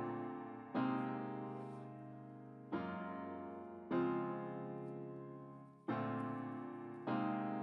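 Background music: slow, soft piano chords, each struck and left to fade. Five chords come in about seven seconds.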